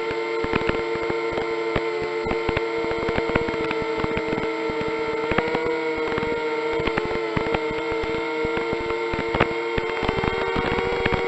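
Multirotor drone's electric motors running with a steady whine, pitch wavering slightly, over frequent crackling clicks.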